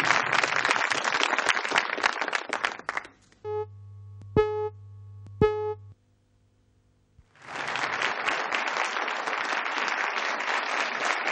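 Studio audience applauding, broken off about three seconds in by a steady buzzy test tone with a low hum and two sharp clicks about a second apart, the tape's colour-bar test signal. About a second of near silence follows, then the applause resumes.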